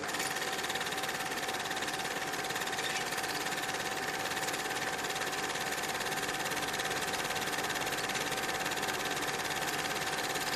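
Cine film projector running: a steady mechanical whirr and clatter with a constant whine.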